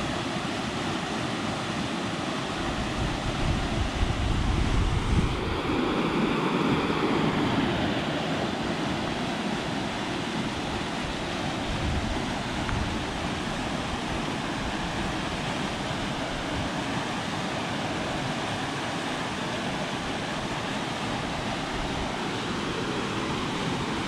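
Whitewater rapids rushing steadily through a narrow rock gorge, with wind buffeting the microphone for a few seconds near the start.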